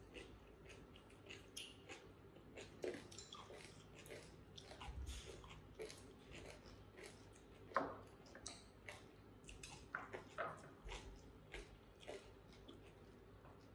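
People eating with chopsticks from rice bowls: quiet chewing and scattered soft clicks, with one sharper click a little past the middle.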